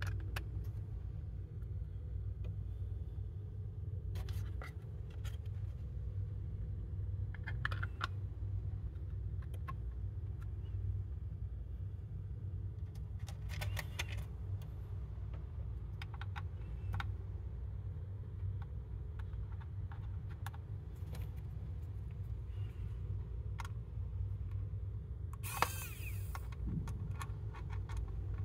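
Scattered small clicks and taps of 3D-printed plastic parts being handled and pressed together, with one sharper metallic click about 25 seconds in, over a steady low hum.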